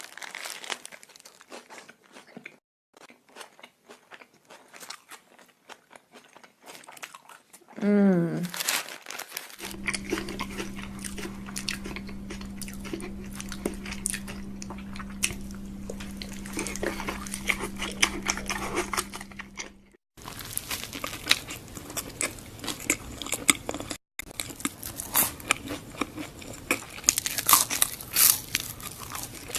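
Close-up crunching and chewing of crunchy snacks: repeated crisp bites and crackles in the mouth.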